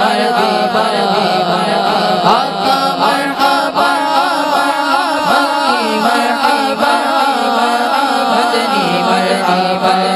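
Devotional naat vocal music without clear words: a wavering sung melody over a steady low drone.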